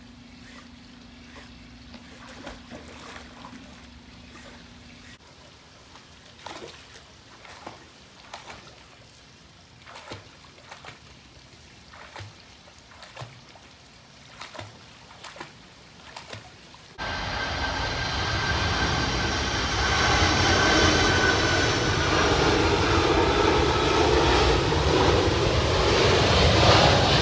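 Light splashing and dripping water as a dog paddles in a swimming pool. About two-thirds of the way in, a much louder steady engine-like noise with a high whine starts abruptly, drowns the water out, and cuts off suddenly at the end.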